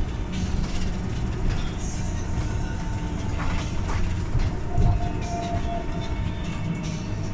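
Cabin noise of an Irisbus Cristalis ETB 18 articulated electric trolleybus under way: a steady low rumble of the running gear and body, with a few knocks and rattles around the middle.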